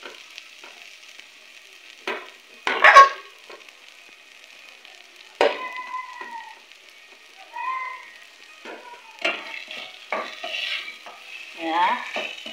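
Tripe frying with tomatoes and onions in a stainless steel pot: a steady sizzle, broken by a spoon stirring and scraping against the pot several times.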